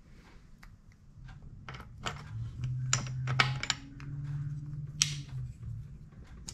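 Metal tools and clutch parts clicking and clinking on the bench, with a few sharp metallic clacks, over a low steady hum that shifts pitch once midway.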